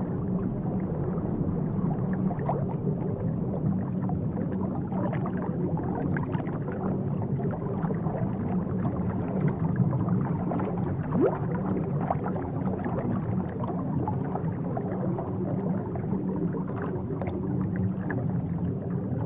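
Aquarium equipment humming steadily, with a continuous crackle of bubbling water over it.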